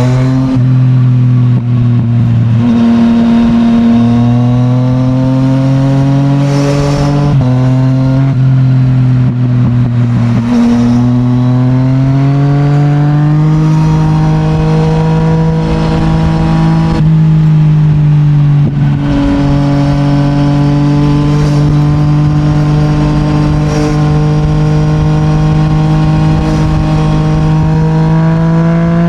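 Yamaha MT-09's three-cylinder CP3 engine through an Akrapovic full titanium exhaust, running on the road at moderate revs. The pitch holds steady for stretches, shifts up and down a few times with throttle, and climbs slowly near the end.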